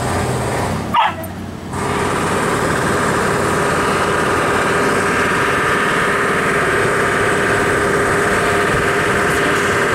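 A short sharp sound about a second in, then an engine running steadily at a constant pitch.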